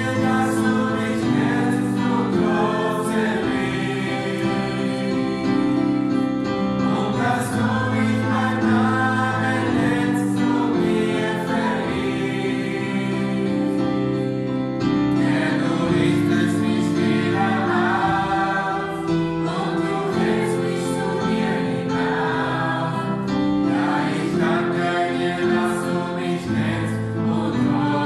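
Small mixed choir of women's and men's voices singing a hymn, unaccompanied.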